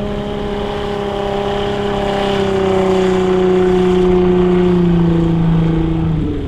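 VW 2.8 VR6 engine in a speedboat running at speed through its baffled, water-jacketed exhaust, a steady engine note as the boat runs past. The note swells near the middle and then slowly drops in pitch.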